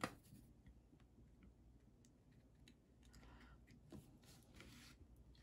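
Near silence: quiet room tone with a sharp click at the start and a few faint ticks and soft brushing sounds.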